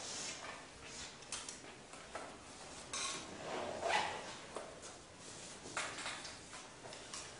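Chalk on a blackboard: short irregular scratches and taps as a figure is drawn.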